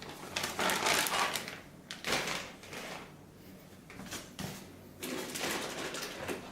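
Rustling and clattering of packaging and parts being handled, in several bursts.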